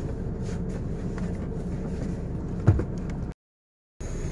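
Truck engine idling steadily, heard from inside the cab, with one dull thump a little before three seconds in. The sound cuts out completely for about half a second near the end.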